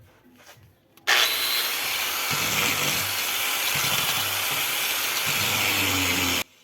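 Angle grinder cutting with an abrasive disc: a loud, harsh grinding noise that starts suddenly about a second in and cuts off abruptly near the end.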